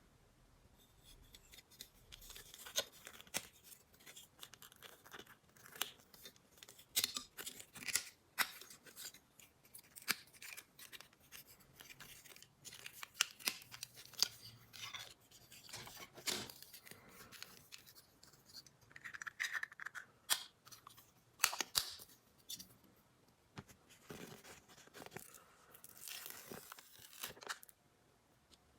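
Hands unboxing miniature toys: packaging and small plastic pieces handled, with irregular sharp clicks, crinkling and tearing or cutting sounds. A longer stretch of rustling near the end stops abruptly.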